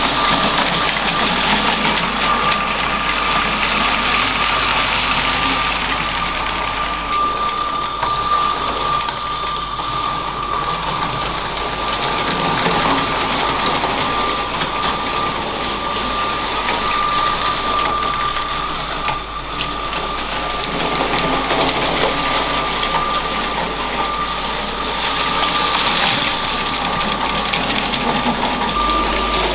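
LEGO train's small electric motor running with a steady high whine, its wheels rattling along plastic track. The rattle swells and fades, as if the train comes nearer and moves away.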